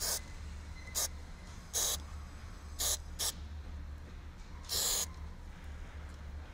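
Aerosol can of spray trim adhesive giving six short hissing squirts over about five seconds; the longest comes near the end. It is held very close and set to full spray, putting on too much adhesive.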